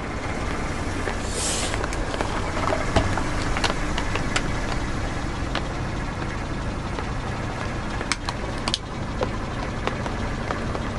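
Car tyre rolling slowly over toy plastic fruits on asphalt, crushing them with scattered crackles and pops over a steady low engine rumble. A short hiss comes about a second in.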